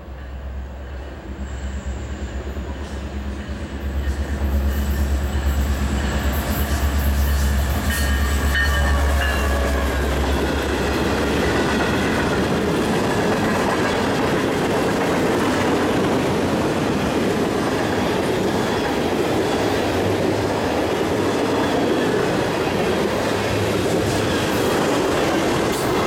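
A freight train passing close by. The diesel locomotives' low engine rumble swells a few seconds in and passes by about ten seconds in. After that the freight cars roll past with a steady noise of wheels on rail.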